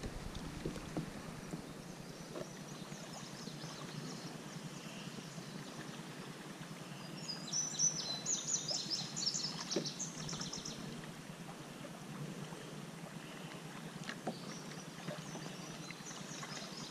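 Steady low wash of river water against a kayak hull, with a few light splashes. About seven seconds in, a bird gives a quick series of high chirps for a few seconds, and fainter chirps come again near the end.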